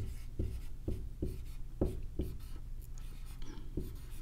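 Dry-erase marker writing on a whiteboard: a series of short, separate strokes, about two a second, as letters are drawn.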